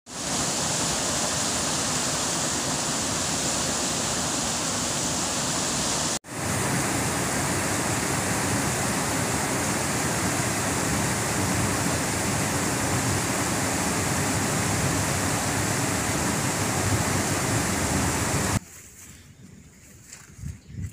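Muddy floodwater in spate rushing over a submerged causeway: a loud, steady rush of water, cut off for a moment about six seconds in. Near the end it drops suddenly to a much quieter scene.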